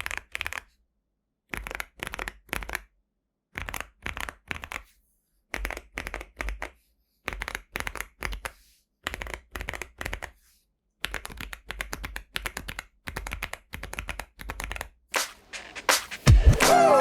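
Mechanical keyboard being typed on in short bursts of several keystroke clicks with brief pauses between, the bursts growing denser later on. Music comes in near the end.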